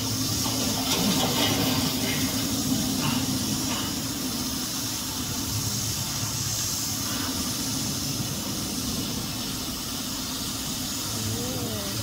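Steady rushing hiss of water spraying from a water-mist projection screen, with a low rumble underneath.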